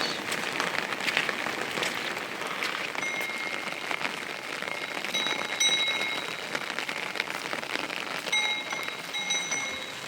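Steady rain falling, a dense hiss of drops pattering on surfaces. A thin high whistling tone comes in twice over it, in the middle and near the end.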